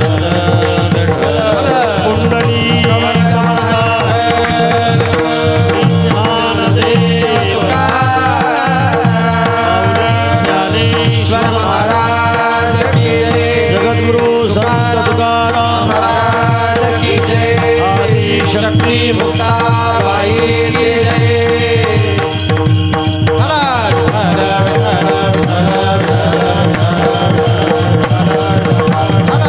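Varkari kirtan music: a sung melody (chal) over steady held drone tones, with continuous mridang drumming.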